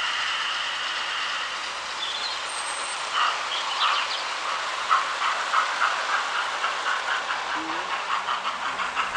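00-scale model trains running past, their wheels clicking over the rail joints in a quick, even rhythm from about five seconds in, over a steady running noise.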